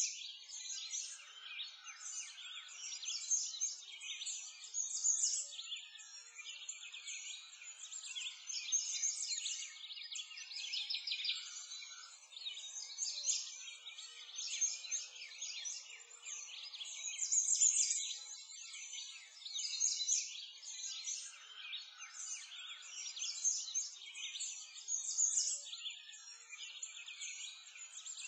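A dense chorus of songbirds, many birds chirping and trilling at once without a break.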